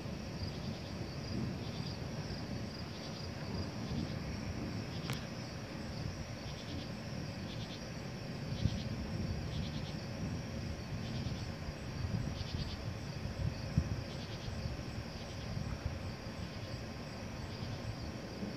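Night insects chirping in short bursts of rapid pulses, about one burst a second, over a low, fluctuating rumble of background noise. A single faint click comes about five seconds in.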